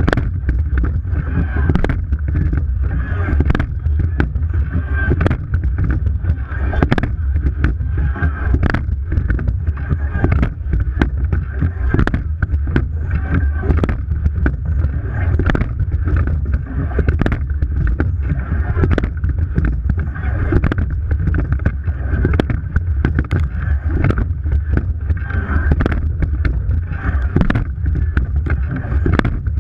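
Racing rowing eight underway: water rushing along the hull with a heavy wind-and-water rumble on the bow-mounted microphone, and a regular knock at each stroke, about every two seconds.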